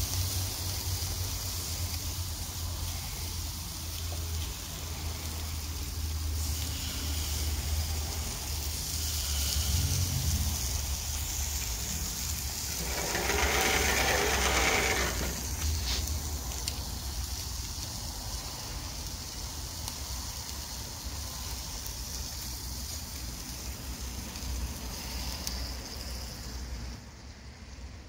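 Wind rumbling on the microphone, with a steady hiss, swelling to a louder rush about halfway through.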